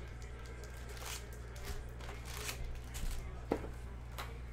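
Foil trading-card packs from a Panini Prizm hobby box crinkling as they are pulled out by hand and set down in stacks, with several sharp taps and clicks, the loudest about three and a half seconds in. A steady low hum runs underneath.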